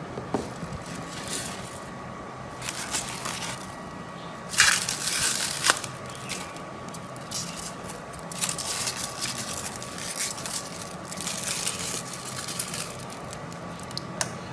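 Handling noise on a workbench: irregular bursts of rustling, scraping and crackling, with a few sharp clicks, as the hot-wire foam cutter's metal frame and handle and the styrofoam block are moved about on a cutting mat. A faint steady whine runs underneath.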